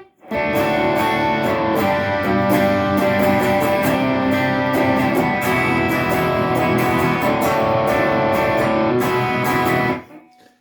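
Electric guitar played through a Fender Tonemaster Twin Reverb amp, sustained chords and notes at a steady loud level. It stops abruptly near the end.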